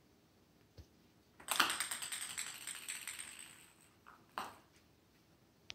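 A ping pong ball bouncing and skittering on a hardwood floor. After a single tap, a sharp click about a second and a half in starts a rapid run of small clicks that fades out over about two seconds, followed by a few isolated taps.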